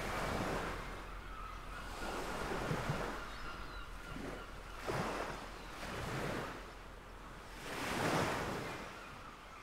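Waves washing in, a rush of water that swells and fades every two to three seconds, the loudest swell near the end.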